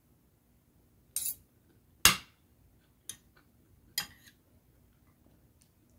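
Metal spoon and fork clinking against a plate while eating: four sharp clinks about a second apart, the loudest about two seconds in.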